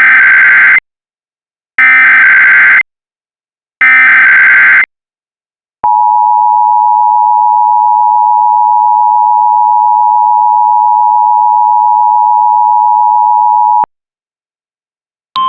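Emergency Alert System tones: three short bursts of SAME header data, each about a second long and a second apart, then the two-tone EAS attention signal held steady for about eight seconds before cutting off. Together they mark the start of an emergency alert broadcast.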